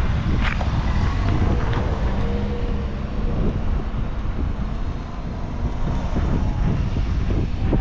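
Wind buffeting an action camera's microphone: a steady, loud low rumble.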